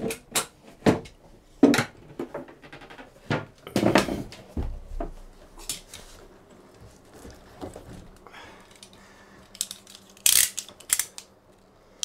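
Irregular knocks and clatter of handling, with a knife cutting into a thick rubber marine exhaust hose.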